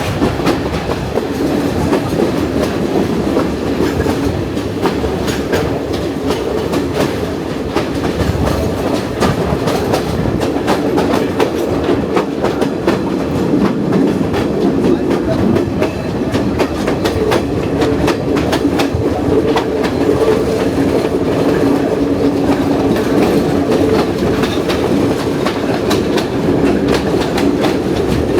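Passenger train running along the track, heard from aboard: a steady rumble with rapid, irregular wheel clicks over the rails, and a hum that grows stronger in the second half.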